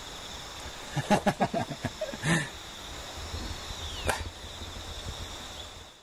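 Steady high trilling of evening insects, such as crickets. About a second in comes a quick run of sharp clicks and knocks, followed by a short falling whistle a little after the middle; the sound fades out at the end.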